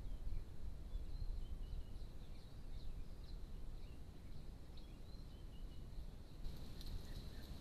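Low, steady ambient rumble with faint, short, high-pitched bird chirps scattered throughout, heard through a trail camera's microphone.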